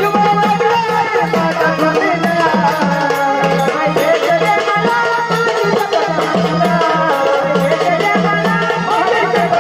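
Instrumental passage of Marathi gondhal folk music: a sustained, gliding melody on an organ over a steady drum rhythm with rattling, jingling percussion.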